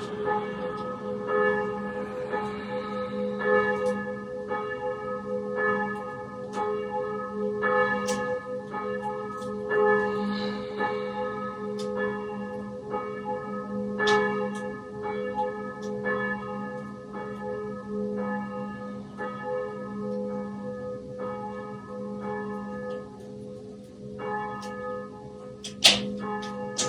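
Church bells ringing continuously, struck over and over about once or twice a second, the strikes overlapping over a steady ringing hum. Two sharp clicks near the end are the loudest sounds.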